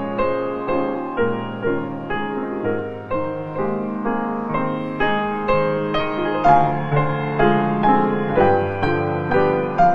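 Background piano music: single notes and chords struck at a slow, even pace, about two a second, each fading before the next.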